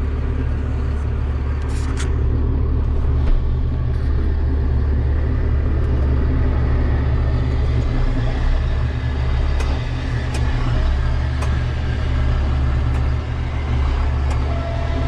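Combine harvester running steadily under load while harvesting beans, heard from the cab as a loud, even low drone with a few faint ticks.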